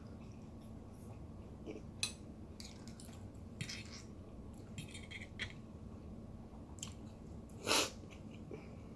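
Someone chewing a mouthful of spicy rice cakes with soft, wet mouth noises and a few faint clicks, and one louder half-second rush of noise about three-quarters of the way through.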